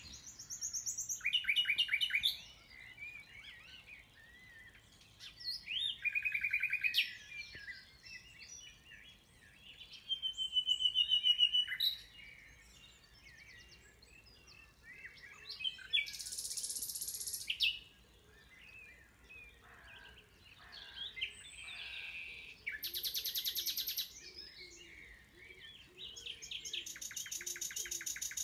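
Common nightingale singing: about six loud phrases of a second or two with pauses between them, several made of fast runs of repeated notes. Fainter bird calls fill the gaps.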